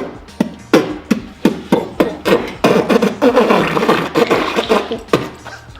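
A person imitating popcorn popping with mouth pops and clicks: a few scattered pops at first, then a dense quick flurry mixed with a hissing voice in the middle, thinning back to single pops near the end.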